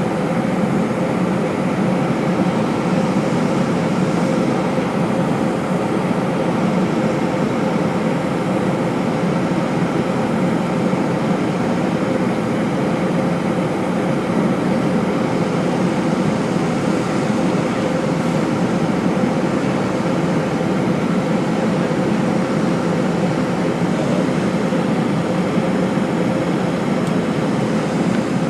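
Steady cabin noise of an airplane in flight: constant engine and airflow noise with a low steady hum running through it.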